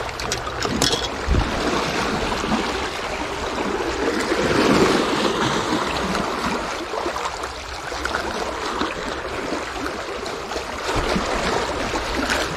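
Small waves washing and splashing against the shoreline rocks: a steady rushing water noise, with a few light clicks near the start.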